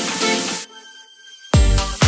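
Electronic dance music with no bass at first. About two thirds of a second in, it falls away to a faint held tone. About a second and a half in, the full beat comes back with heavy bass kick drums.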